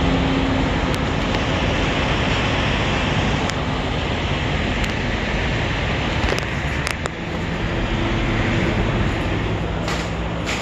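Diesel semi-trucks running in a truck lot: a steady rumble with a low engine hum.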